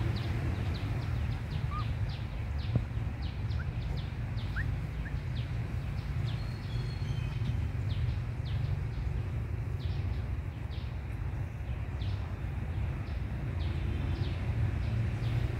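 Steady low rumble of outdoor background noise, with many faint high chirps and ticks throughout. There are a couple of brief faint rising squeaks about four seconds in.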